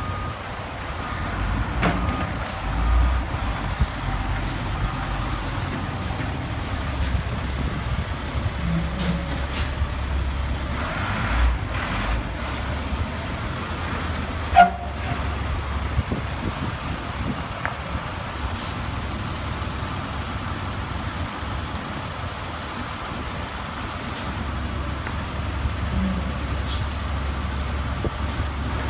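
Large heavy-duty tow truck's diesel engine running at low speed as it creeps forward, with short hisses of air brakes. About halfway through there is one sharp, loud clunk.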